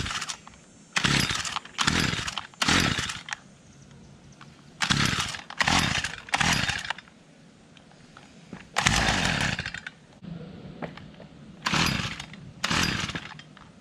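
Stihl FS 55 R string trimmer being pull-started on choke: about ten rope pulls in quick groups, each a short burst of the recoil starter cranking the small two-stroke engine, which does not settle into running.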